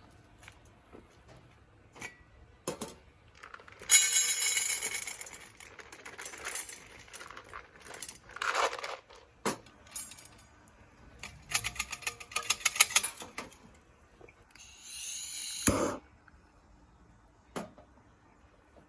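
Light clinks and rattles of small hard pieces on thin metal, with two dense bursts of rattling about four seconds in and past the middle, and a short scraping swish near the end.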